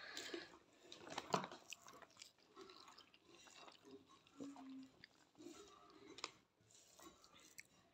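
Faint eating sounds: chewing with soft clicks and squelches as fingers mash rice with green bhorta on a steel plate. The clearest click comes about a second in.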